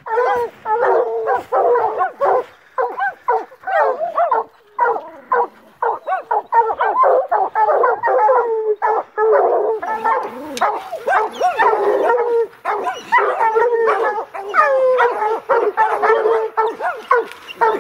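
Several hunting dogs barking and baying together without let-up, many overlapping barks a second, at a mountain lion they have treed: the steady baying that tells hunters the cat is treed.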